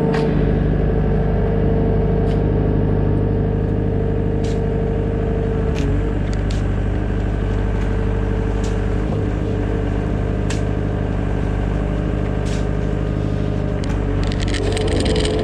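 Digging machine's engine running steadily at a constant speed, with a few light, sharp clinks scattered through.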